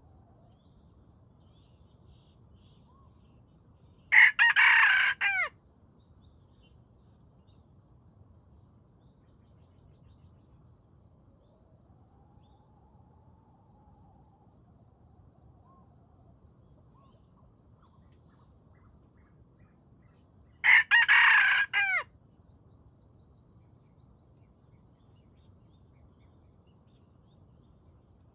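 Wild jungle fowl rooster crowing twice, each crow a short call of about a second and a half, the two about sixteen seconds apart, over a faint steady trill of insects.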